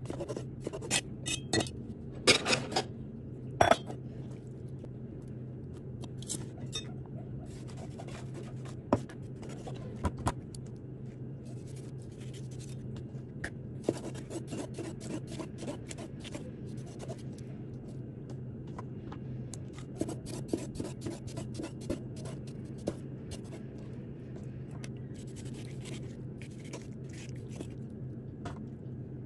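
Cleaver blade knocking on a wooden cutting board as squid is sliced, in quick runs of chops with a few louder strikes in the first few seconds, over a steady low hum.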